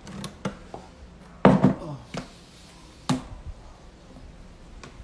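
Handling knocks and clicks from painting tools, several short sharp ones with the loudest about a second and a half in.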